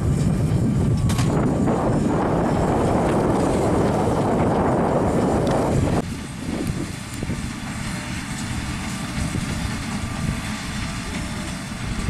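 Massey Ferguson 7718 tractor and MF Hesston large square baler running while baling straw, a steady engine-and-machinery drone. The sound drops abruptly to a quieter level about halfway through.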